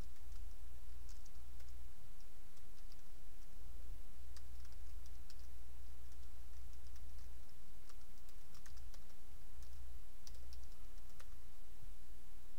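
Typing on a computer keyboard: scattered, irregular keystroke clicks over a steady low hum.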